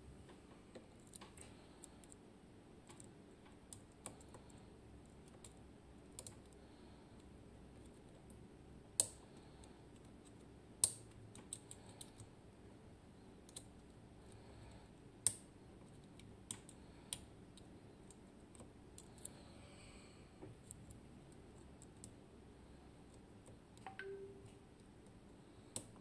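Lock pick and tension wrench working the pins and sliders of a Magnum Atlantic cylinder lock: faint, irregular metallic clicks and ticks, with a few sharper clicks standing out.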